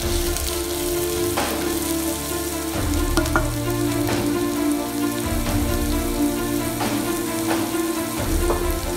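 Chopped red onions sizzling in oil in a pan, stirred with a wooden spatula at the start, over background music with long held notes and a bass that changes every few seconds.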